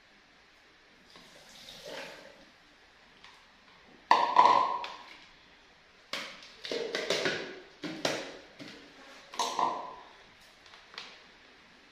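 A short pour of liquid into a plastic blender jar, then a series of sharp clunks and knocks as the jar and its lid are handled and set in place, the loudest about four seconds in.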